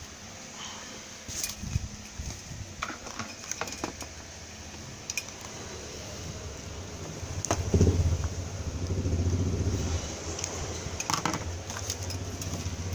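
Scattered light clicks and taps of wires and a tube-light batten being handled while the choke's wires are joined. A low rumble swells about eight seconds in and is the loudest sound for a couple of seconds.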